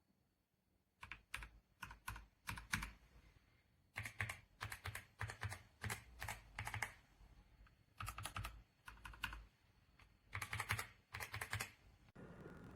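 Typing on the YUNZII AL66 mechanical keyboard: quick runs of key clicks and clacks, four bursts with short pauses between them.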